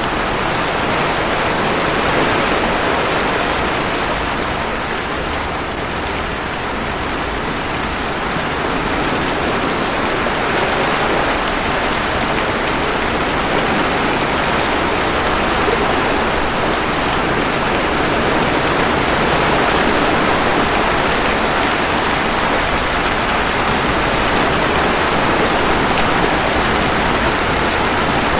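Steady rain falling, layered with ocean waves washing ashore: a dense, even hiss that dips slightly a few seconds in and slowly swells back.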